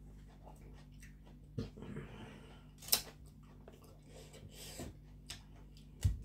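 A person eating and chewing, with scattered small clicks and taps and one sharper click about halfway through, over a faint steady low hum.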